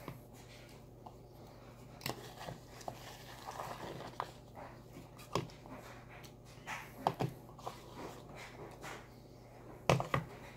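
A metal spoon scraping and clicking against a bowl of ice cream, with soft eating sounds, in short scattered strokes over a low steady hum.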